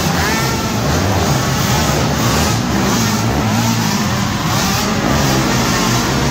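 Several youth racing quads (ATVs) revving as they race around a dirt track. Their engines overlap, each rising and falling in pitch as the riders get on and off the throttle.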